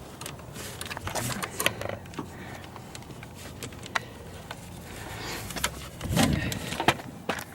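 Scattered clicks and rattles of car door parts being handled and fitted inside an open door, with a louder thud about six seconds in.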